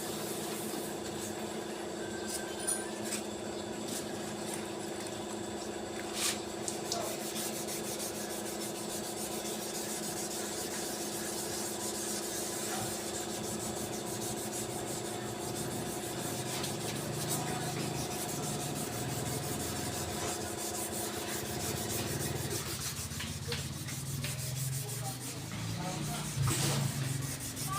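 Continuous sanding on a car bumper during dent repair, a steady rubbing scrape. A steady machine hum underneath it stops about three quarters of the way through.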